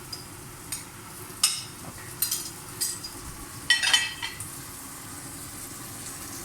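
Guanciale frying in a little lard in a pan, with a steady sizzle. A utensil clinks and scrapes against the pan about five times in the first four seconds as it is stirred.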